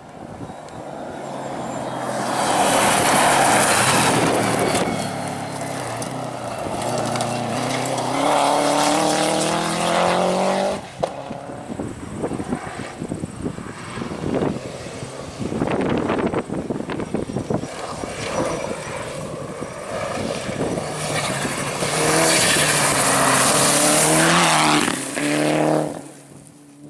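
Rally car engine at full throttle passing at speed on a gravel forest road, with tyres and flung gravel hissing. The engine note falls as it goes by, and there are two loud passes before the sound drops away.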